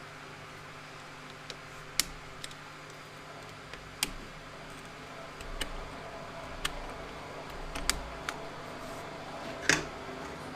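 Hand tools and metal parts of a tractor hydraulic coupler clicking and knocking as they are handled: several sharp separate knocks a second or so apart, the loudest near the end, over a faint steady hum.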